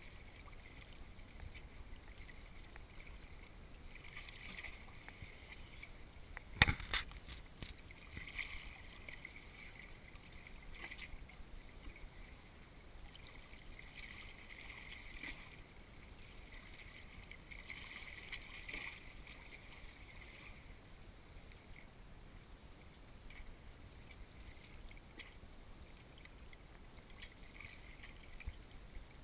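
Calm sea water lapping softly against rocks in faint, recurring washes every few seconds. A single sharp knock sounds about seven seconds in.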